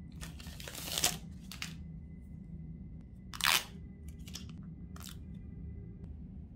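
A new smartphone being handled in its plastic protective film: a few short crinkles and rustles, the loudest about three and a half seconds in, over a low steady hum.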